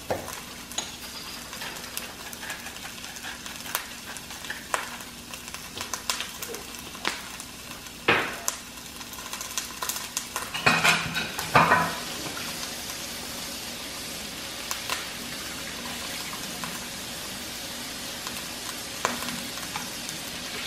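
Broccolini sizzling in hot olive oil and butter in a nonstick frying pan: a steady frying hiss with a few sharp pops and knocks, the loudest of them about eight and eleven seconds in.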